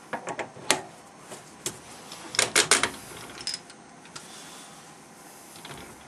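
Metal clacks and clinks as a knurling tool holder is set onto a stopped metal lathe's toolpost and adjusted: a few knocks near the start, then a quick burst of sharp knocks about two and a half seconds in.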